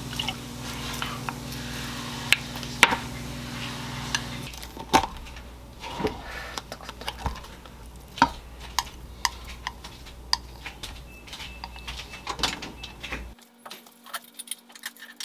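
Kitchen utensils clicking and scraping against dishes: a wooden spoon stirring in a small glass bowl, then chopsticks scraping food off a ceramic plate into a wooden bowl, making scattered sharp taps. A low steady hum underneath stops about four and a half seconds in.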